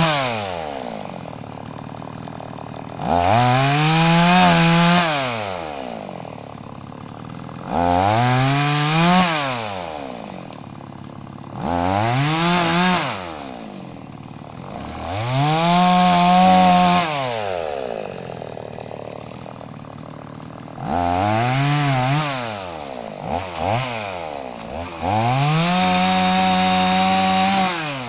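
Gasoline chainsaw bucking an oak top into blocks. It goes up to full throttle for about two seconds per cut, six times, and drops back to idle in between. There are a couple of quick throttle blips just before the last cut.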